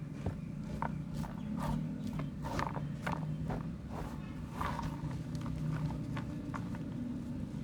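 Soft mud crumbling and crunching under the fingers in short irregular crunches, about one or two a second.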